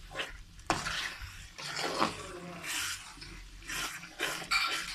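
Onion and spice paste sizzling in a steel karahi while a metal spoon stirs and scrapes through it, the sizzle swelling and fading with the strokes and a few sharp clicks of spoon on pan. The masala is being fried down before the chicken is added.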